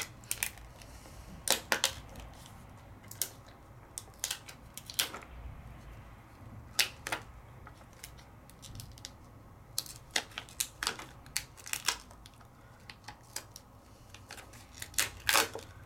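Light, irregular clicks and taps of a clear rubbery stamp being peeled and handled against its plastic liner sheet, growing busier near the end.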